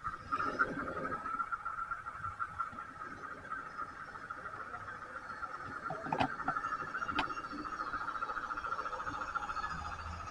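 Model garden-railway locomotive running along the track, its electric motor and gears giving a steady, finely pulsing whine. Two sharp clicks about six and seven seconds in.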